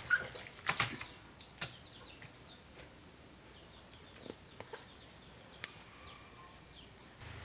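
Hands squishing and handling wet shredded paper pulp (papier-mâché) in a plastic tub for the first second or two, with a few sharp clicks and knocks. After that, only faint short bird chirps.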